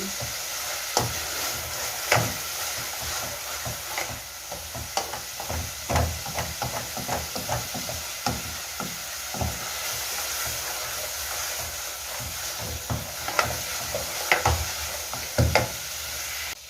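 Food frying in margarine in a pan with a steady sizzle, while a spoon knocks and scrapes against the pan at irregular moments as it is stirred.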